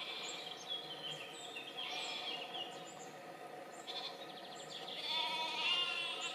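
Sheep and lambs of a grazing flock bleating, several wavering calls overlapping, the loudest between about five and six seconds in.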